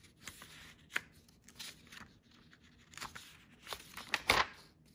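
Paper pages of a spiral-bound workbook being turned by hand: a series of rustles and flicks, the loudest page flip about four seconds in.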